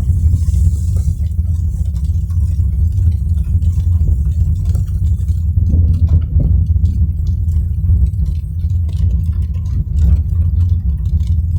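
Steady low rumble of a car driving, with light ticks of rain on the car throughout and a faint hiss that thins out about halfway through.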